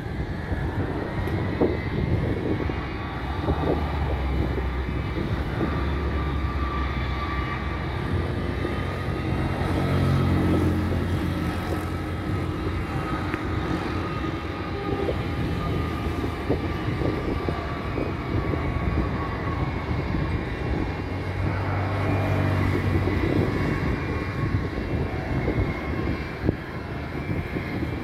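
Jet airliner engines running at low power, a steady turbine whine that drifts slowly in pitch over a low rumble.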